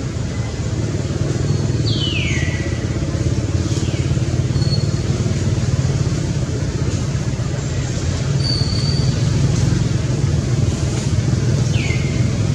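Steady low rumble of motor traffic. Over it come a baby monkey's short, high cries, each falling in pitch: one about two seconds in and two more near the end.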